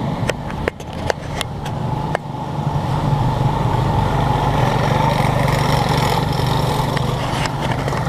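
A mototaxi's small motorcycle engine running and getting louder from about two seconds in. A few sharp clicks come in the first two seconds.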